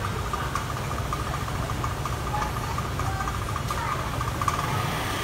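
A steady low mechanical hum, like an engine or motor running, with a faint broken whine above it in the first few seconds and a few faint ticks.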